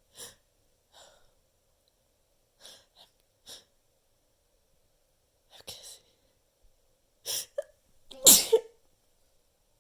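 A person's short sniffs and breaths, a second or two apart, then a sneeze near the end, the loudest sound, with a sharp breath just before it.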